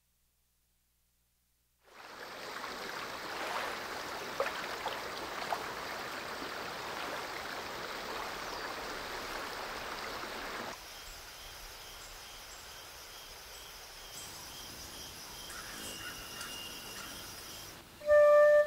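After about two seconds of silence, water splashes and runs down a small rocky cascade. A cut about ten seconds in brings quieter forest ambience with a steady chirp repeating about twice a second. Near the end, loud bell-like music tones begin.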